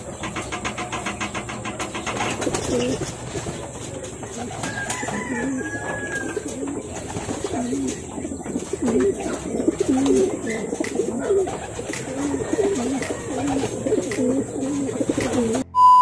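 Racing pigeons cooing in the loft, a string of short low coos repeating about once a second, several birds overlapping. Just before the end the sound cuts suddenly to a steady electronic test tone.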